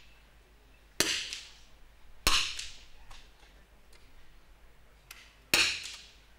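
Three sharp shots from .22 rimfire smallbore target rifles, about one, two and five and a half seconds in, each with a short echoing tail.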